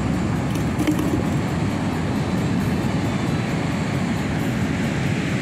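Steady low rumble of ocean surf breaking on a beach.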